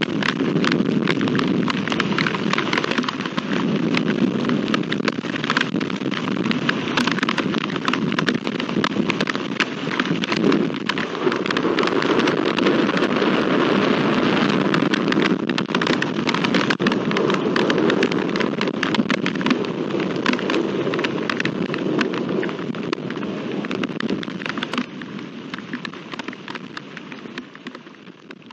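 Heavy storm rain pouring down: a dense, loud patter of drops over a steady rush. It fades out over the last few seconds.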